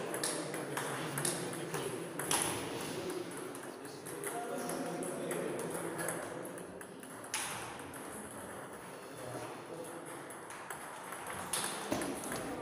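Table tennis ball clicking back and forth off the bats and table in a rally, then a pause between points, with a new run of ball hits near the end.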